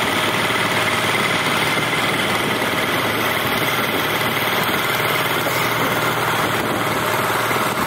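Small river boat's engine running steadily, an unbroken drone with a constant high whine.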